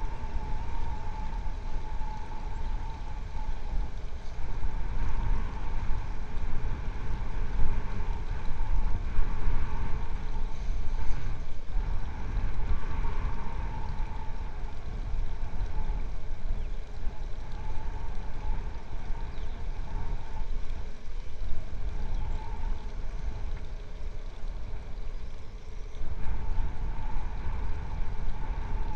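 Motorboat engine droning, its pitch wavering and fading in and out, over a steady low rumble of wind on the microphone.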